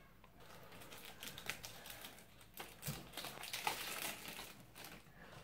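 Faint, irregular snips and clicks of scissors cutting the plastic film wrap off a small cardboard toy box, with the box handled and opened.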